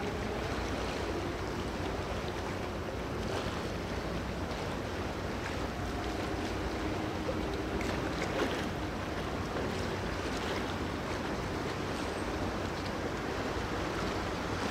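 Steady wind on the microphone and water noise, with a faint low hum of ship engines underneath.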